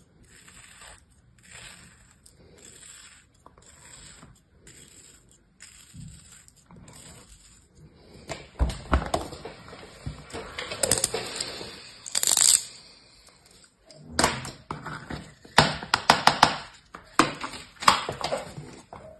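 Kinetic sand being sliced with a small knife in soft, evenly repeated scraping strokes, then pressed and crumbled by hand in a plastic tray, with louder crunching and sharp crackling as the packed sand breaks apart in the second half.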